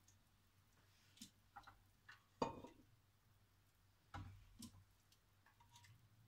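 Faint scattered taps and clinks as cooked asparagus is put into a blender jug. The loudest knock comes about two and a half seconds in and another about four seconds in, over a low steady hum.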